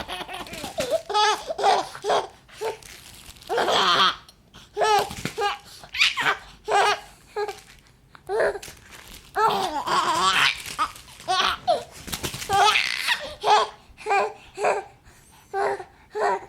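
A baby laughing hard in repeated fits of high-pitched giggles, with short breaks between them.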